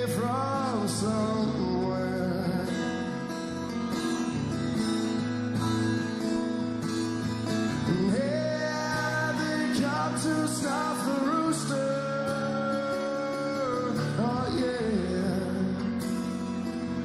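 Live acoustic rock performance: a male voice singing long, wavering notes over a strummed acoustic guitar.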